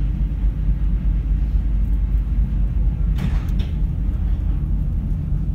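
Steady low rumble of a car ferry's engines, heard on board, with a short burst of rushing noise about three seconds in.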